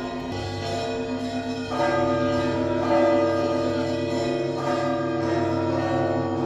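Russian Orthodox monastery bells of the Trinity Lavra of St. Sergius ringing together: several bells humming on at once, with fresh strokes every second or two adding new tones, loudest a couple of seconds in.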